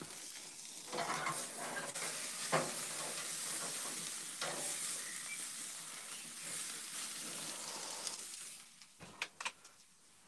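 Steak sizzling on the grate of a stainless gas grill, with a few knocks against the grate. The sizzle drops away near the end, and a couple of sharp clanks follow as the grill lid is shut.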